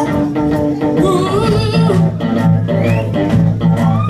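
Live band playing a blues-rock song: electric guitar and bass over a steady rhythm, with a woman singing.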